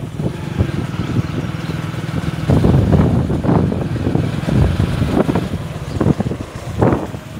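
Motorcycle engine running while riding over a bumpy dirt track, with irregular knocks and rattles from the jolts.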